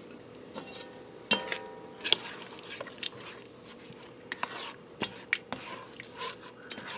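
Chili being stirred in an enamelled pot with a slotted spatula: a wet scraping with several sharp clinks of the utensil against the pot, loudest about a second in and again about two seconds in.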